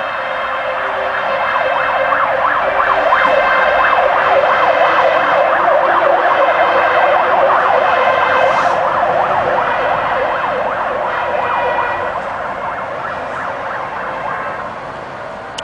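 Fire engine siren sounding in rapid rising-and-falling sweeps. It grows louder over the first few seconds as the truck approaches and passes, then slowly fades as it drives away.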